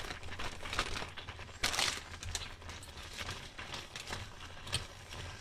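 Plastic bag of fresh spinach crinkling as the leaves are shaken out into a saucepan, with one louder crinkle about two seconds in; then a utensil stirring the spinach in the pan, with a few light clicks.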